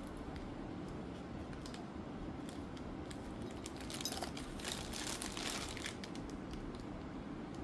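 Clear plastic wrapping crinkling and small metal fittings clicking together as hands pull mounting hardware out of its bag, busiest in the middle.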